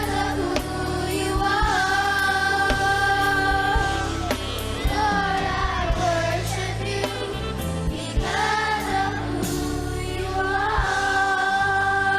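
Gospel song: sung voices holding long notes over bass and drums.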